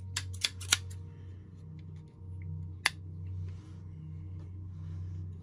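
Scissors snipping toy packaging: three quick sharp snips in the first second, then one more near the middle, with faint rustling between.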